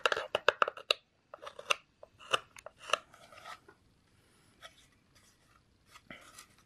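Carving knife slicing green black walnut: a quick run of crisp snicks in the first second, more in small groups over the next few seconds, then only a few faint ones.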